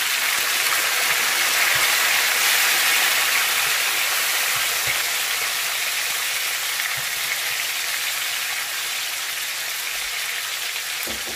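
Tomatoes frying in hot oil with sautéed garlic: a steady sizzle that is loudest about two seconds in, then eases slowly.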